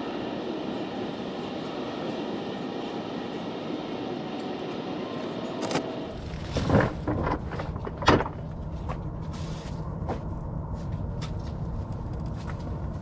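Used motor oil trickling in a thin stream from the oil pan drain hole into a drain pan already part full of oil. About six seconds in come a few sharp knocks, and a low rumble follows.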